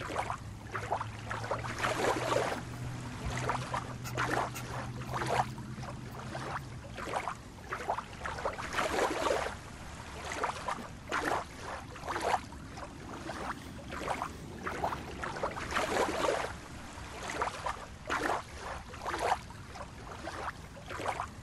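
Small waves lapping and washing on a pebbly shore in irregular surges, about one every second or two. A faint low hum sits under them for the first seven seconds or so.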